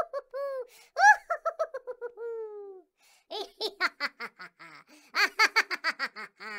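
High-pitched laughter: rapid ha-ha pulses in three bouts, the first ending in a long falling note.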